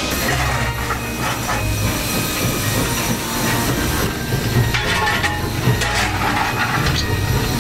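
Steam locomotive and its carriages running, with a steady rumble and hissing steam. There are a few sharp knocks around five and six seconds in.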